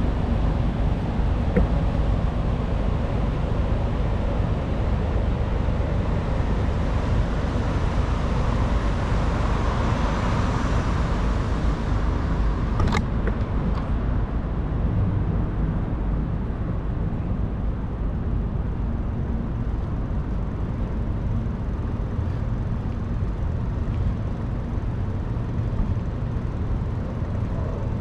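Wind rumbling on the microphone of a moving bicycle, over road traffic. A vehicle swells past about ten seconds in, and a single sharp click comes shortly after.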